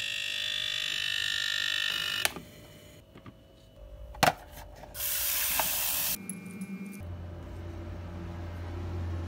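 Kiwi KEB-4308 egg cooker's completion buzzer sounding steadily for about two seconds, signalling that its water has boiled away and the eggs are done, and ending in a sharp click. A knock follows, then about a second of running tap water, and a low steady hum near the end.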